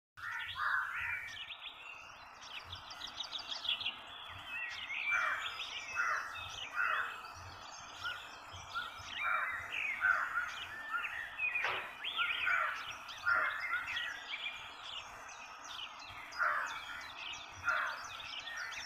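Small birds chirping and twittering continuously, many short overlapping calls, over a faint steady background hum.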